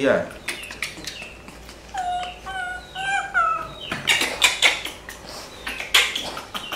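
Baby macaque crying: a run of short, high, wavering cries a couple of seconds in, with scattered clicks and rustles of handling and louder harsh bursts around four and six seconds.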